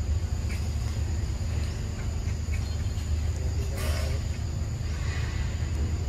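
Outdoor ambience: a steady low rumble with a constant high-pitched insect drone over it, and a brief higher sound about four seconds in.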